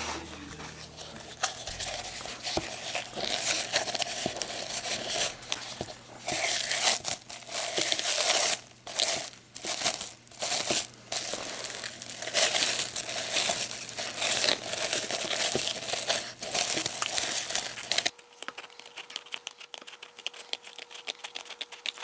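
Plastic cling film crinkling and rustling in irregular handfuls as a dried paper-and-glue shell is worked off a plastic egg mould and the film is pulled free. It stops abruptly about three-quarters of the way through, leaving only faint ticking.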